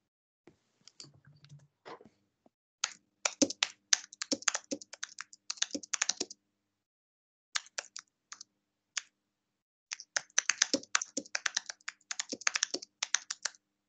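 Typing on a computer keyboard: a fast run of keystrokes, a few scattered taps, then a second fast run.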